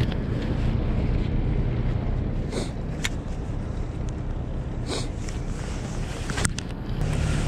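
Wind buffeting the microphone over a steady low rumble, with a few sharp clicks and two short swishes.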